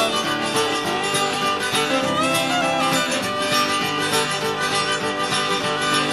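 Cajun music: a fiddle playing over guitar accompaniment, with the fiddle's pitch sliding between notes.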